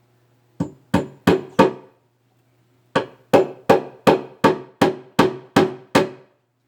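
Hammer blows on wood at about three a second: four blows, a pause of about a second, then nine more, each with a short ringing tail.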